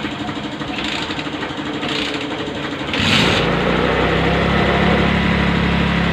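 Rusi 110 motorcycle's small single-cylinder engine running steadily. There are three short hissing bursts in the first few seconds, and about three seconds in the running turns louder and deeper.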